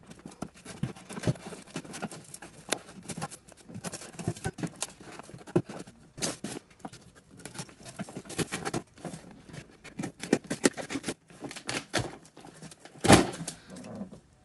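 Cardboard USPS Priority Mail shipping box being handled and opened by hand: irregular taps, scrapes and rustles of cardboard, with a louder rustling burst near the end as the flaps are pulled open on a box packed with silicone molds.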